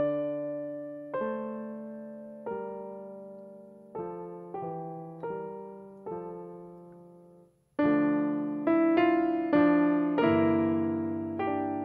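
Background piano music: slow, gentle chords, each struck and left to fade. After a brief pause about eight seconds in, fuller and louder chords follow.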